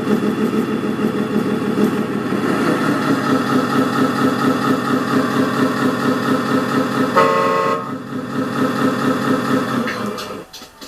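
Electronic sound unit of a 1/14 Scania R620 RC truck playing a simulated diesel engine at idle, with one short horn toot about seven seconds in. The engine sound cuts off near the end.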